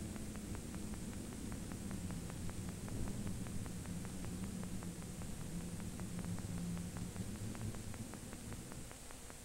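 Faint steady hum and hiss of an old 16mm film soundtrack, with a fast, even ticking of about five a second.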